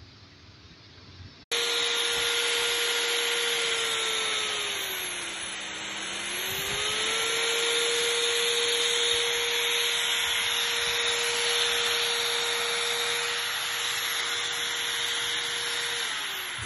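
Electric power tool running on wood with a steady motor whine and a broad cutting noise. It starts abruptly about a second and a half in, its pitch sags for a moment about five seconds in and recovers, and it winds down near the end.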